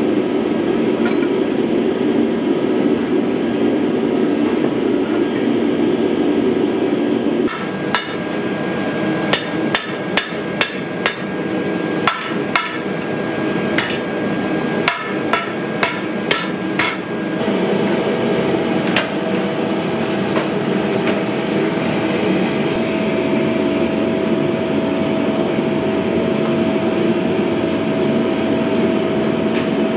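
Hand hammer striking a glowing bowie knife blade on an anvil: about fifteen irregular blows over roughly ten seconds, starting about a quarter of the way in, with the anvil ringing. A steady workshop machine roar runs underneath throughout, and a steady hum joins it after the hammering stops.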